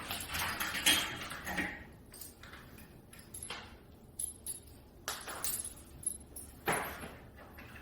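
Metal handcuffs and chain jangling and clinking, with a few sharp clicks, as restraints are handled and put on.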